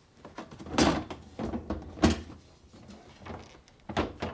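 Plastic freezer drawer knocking and clattering against its slides as it is seated on them: a series of short sharp knocks, the loudest about a second in, at two seconds and twice near the end, with lighter clicks between.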